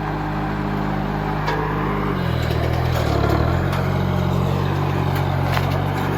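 Engine running steadily, its speed dropping about two seconds in and picking up again a second or so later, with a few light clicks over it.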